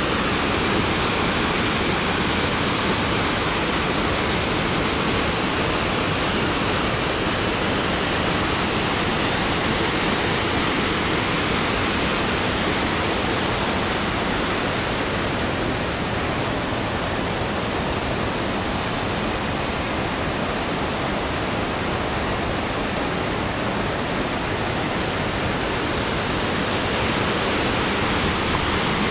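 Waterfall pouring over rock ledges into a pool: a steady, full rush of falling water.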